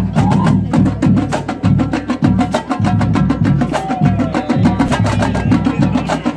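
Marching drumline playing: rapid stick strokes on snare and tenor drums over regular bass drum hits.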